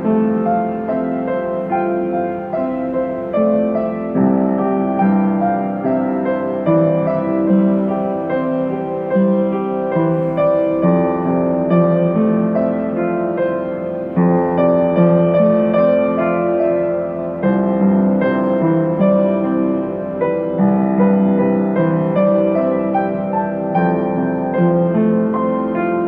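Piano music, with notes following one another without a break.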